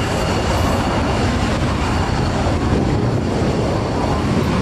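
F-16 fighter jet's engine running as the aircraft rolls along the runway: a steady, loud, even rush of noise.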